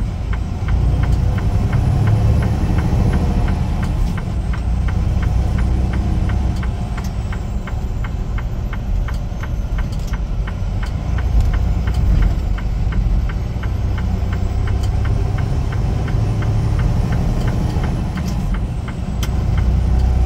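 Semi-truck's diesel engine running, heard from inside the cab as the truck gets going, a steady low rumble with a fast, even ticking over it.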